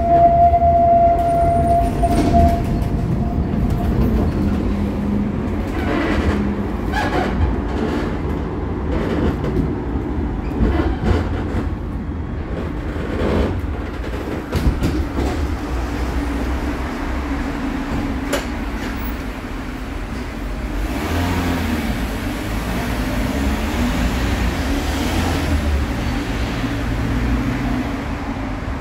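Cologne Stadtbahn light-rail car heard from inside, running on street track: a steady low rumble of the wheels on the rails with scattered clacks over track joints, and a steady motor hum in the second half. A high steady tone fades out over the first few seconds.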